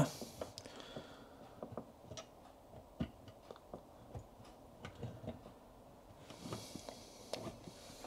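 Faint, scattered small clicks and light scrapes of fingers working in a dishwasher's drain sump, picking at a chipped piece of porcelain jammed in the drain pump impeller.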